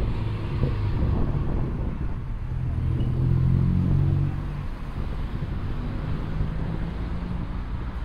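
Street traffic noise with a motor vehicle's engine running close by. It is loudest about three to four seconds in, then eases off.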